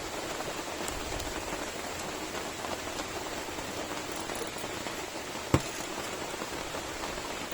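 Steady rain falling, an even hiss, with one sharp knock about five and a half seconds in.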